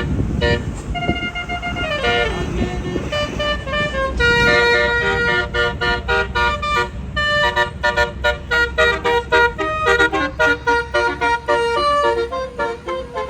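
Bus telolet 'basuri' horn, a multi-tone musical air horn on a tour bus, playing a melody of honked notes that grows into a quick run of short notes in the second half, over a low engine rumble.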